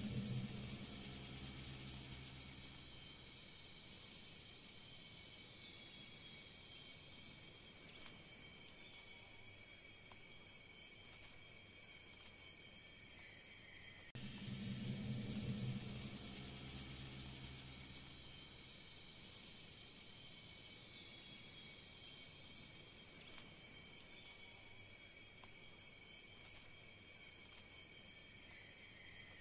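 Faint looped ambience of insects chirping in a steady high chorus, with a low hum swelling for a few seconds at the start and again about halfway through.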